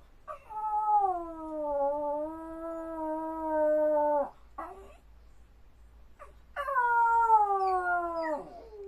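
Jack Russell terrier howling: two long howls, the first about four seconds long and holding a fairly steady pitch, the second starting past the middle and sliding downward. Separation howling for its absent owner.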